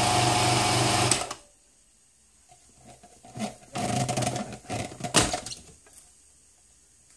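Magimix Compact 3150 food processor motor running steadily as it grinds peanuts into butter, then switched off about a second in, stopping abruptly with a click. After a short quiet spell come a few seconds of uneven clattering noises and one sharp knock.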